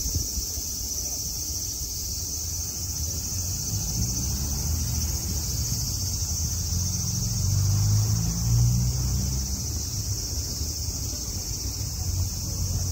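Steady high-pitched chorus of cicadas, with a low rumble underneath that swells about eight seconds in.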